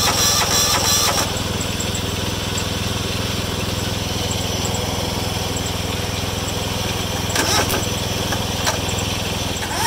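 Kawasaki 14 HP single-cylinder OHV engine of a John Deere LX176 lawn tractor running steadily on choke, just brought back to life on old gas after sitting several years. A loud rattling clatter rides on top of the engine note for about the first second, then drops away. It returns briefly a little after the middle and again at the very end.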